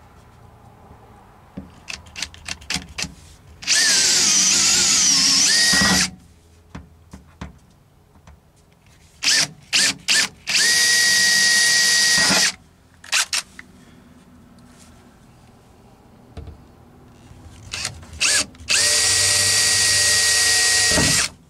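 Cordless drill running in three bursts of about two seconds each, with short taps on the trigger before each burst. The first burst wavers in pitch; the other two hold a steady whine.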